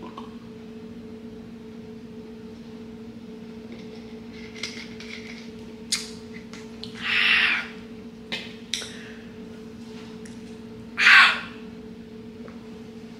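A person gagging and coughing after downing a turmeric shot: harsh rasping bursts, a strong one about seven seconds in and the loudest about eleven seconds in, with weaker ones and a few light clicks between, over a steady low hum.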